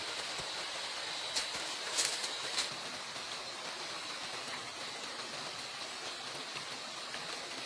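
Steady, even hiss of outdoor background noise, with a few light, sharp taps about one and a half to two and a half seconds in.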